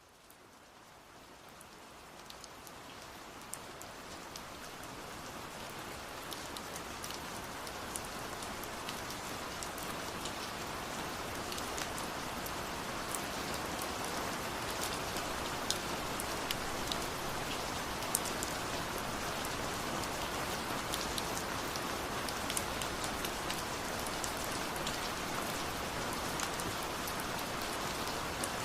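Steady rain falling on a surface, with many separate drops ticking sharply over a constant hiss. It fades in over the first several seconds and then holds level.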